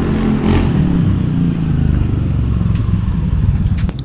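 Small motorbike engine running close by, its pitch wavering up and down a little. The sound cuts off abruptly just before the end.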